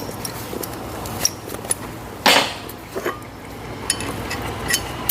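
Steel parts being handled on a workbench: scattered light metal clinks and ticks, with a sharper clank about two seconds in and another a little later.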